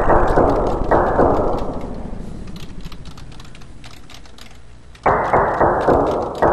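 Rapid clattering keyboard-typing sound effect in bursts as text is typed out on a computer chat screen: one starts about a second in and fades away over a few seconds, and another starts suddenly about five seconds in.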